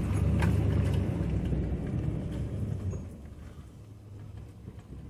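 Chevrolet Silverado pickup rolling slowly, heard from inside the cab as a low rumble of engine and tyres that eases off about three seconds in.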